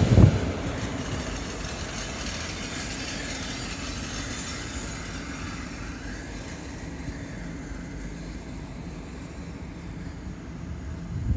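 Passenger train carriages rolling past on the rails, with loud wheel clacks right at the start, then a steady rumble that slowly fades as the last carriage pulls away.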